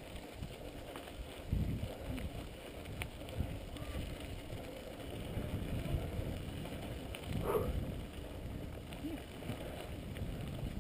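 Mountain bike rolling over a gravel dirt road: a steady low rumble of tyres on loose ground with irregular small knocks and rattles from the bike, and wind on the microphone.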